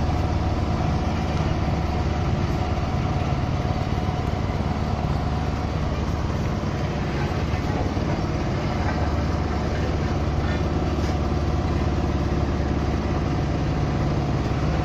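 Heavy diesel engines of a tipper truck and an asphalt paver running steadily, a constant deep hum.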